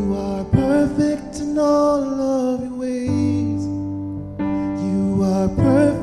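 A slow song: a singer holding long notes with vibrato over keyboard chords.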